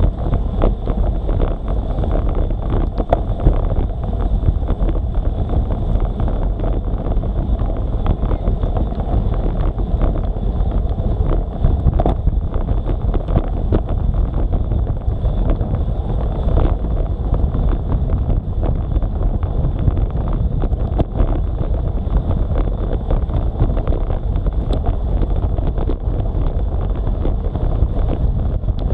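Wind buffeting the microphone of an action camera mounted on a road bike riding at speed, mixed with tyres hissing on a wet road. Small ticks and knocks run through it.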